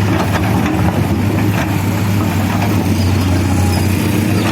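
Backhoe loader's diesel engine running at a steady speed, a low even drone.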